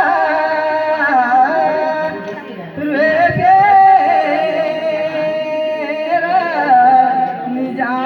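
A man singing a Kumaoni folk song in long held notes with wavering ornaments, pausing briefly about two and a half seconds in.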